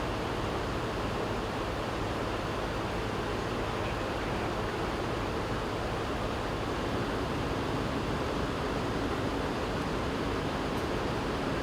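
Steady rushing of fast-moving floodwater, with a low steady hum underneath.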